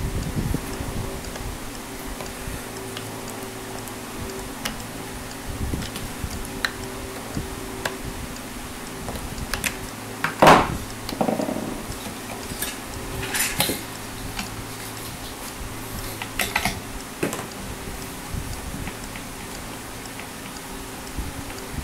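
Metal clicks and clinks of a hex key and steel strings on a Floyd Rose locking bridge's saddles and hardware during re-stringing. The loudest is a single ringing metallic knock about ten seconds in, with more clinks a few seconds later.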